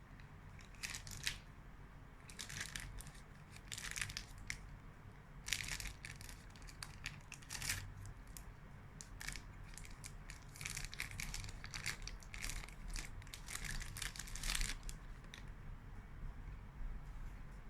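Irregular bursts of crackly crinkling and crunching, close to the microphone, from chocolate bonbons being unwrapped and eaten. They come in clusters and are thickest in the last third.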